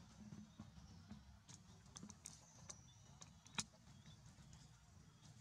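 Near silence: faint ambience with scattered light clicks and ticks, one sharper click about three and a half seconds in.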